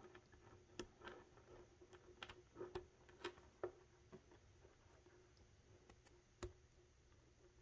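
Faint, irregular plastic clicks of cable combs being pressed onto the wires of sleeved PSU extension cables, the sharpest about six and a half seconds in.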